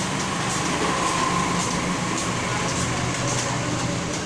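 Computer keyboard being typed on, giving faint, irregular key clicks about twice a second, over a steady background hum.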